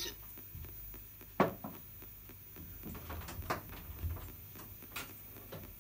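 Spirit box radio sweeping down the AM band in reverse, giving a string of short clicks and static blips over a steady low hum, with one sharper click about one and a half seconds in.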